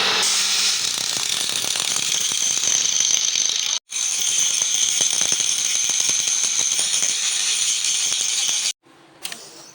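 CO2 (MIG) welding arc crackling and sputtering, a dense run of fine clicks over a hiss. It breaks off sharply near the middle, and again near the end, where it drops to a much quieter sound.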